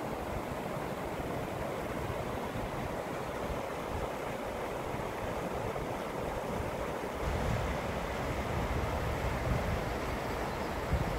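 Steady rushing of a creek flowing over rocks and small rapids. About seven seconds in, wind buffeting the microphone adds a low rumble.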